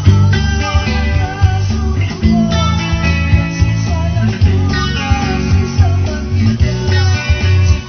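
Band music in a rock style led by guitar over a steady, pulsing low beat.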